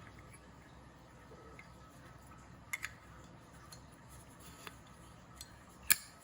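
Small sharp clicks from handling a 1938 Zippo lighter: a quick pair about three seconds in, a few faint taps, then one loud click near the end.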